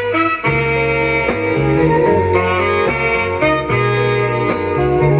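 Instrumental passage of a 1970 pop record with no singing: a saxophone or brass lead plays held notes over a bass line that steps from note to note.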